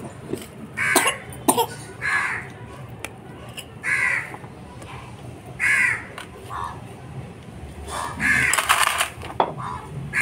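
A crow cawing: about six single caws at irregular gaps of a second or two, with a longer, louder call about three-quarters of the way through. A few sharp clicks sound in the first second and a half.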